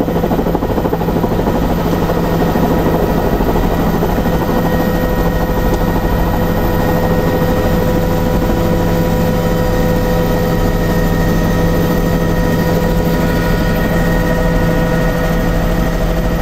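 Helicopter in flight heard from inside the cabin: steady, loud engine and rotor noise with a constant low hum and a few held tones above it.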